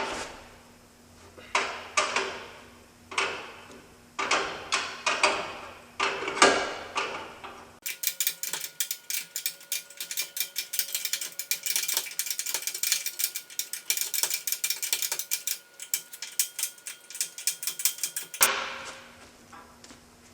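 Hand ratchet wrench tightening the conveyor chain tensioner on a feed mixer. It starts with a few sharp metal knocks that ring briefly. About eight seconds in comes a dense run of quick clicks lasting about ten seconds as the bolt is cranked, then a few more knocks near the end.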